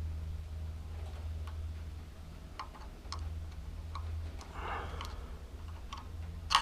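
Small clicks and taps of hand-work fitting the rubber fuel line and its hose clamp onto the carburetor's fuel inlet, with a short scraping rustle past the middle and one sharp click at the end. A steady low hum runs underneath.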